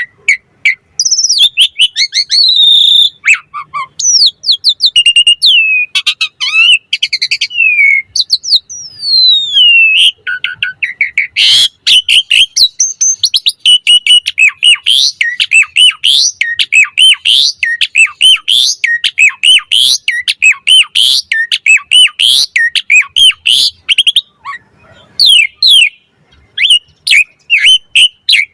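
Javan pied starling (jalak suren) singing a long, varied song of loud whistles, chirps and gliding notes, with a long run of quick, repeated rising whistled notes through the middle.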